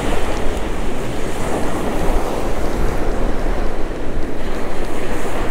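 Ocean surf breaking and washing up the beach, with wind buffeting the microphone as a low, steady rumble.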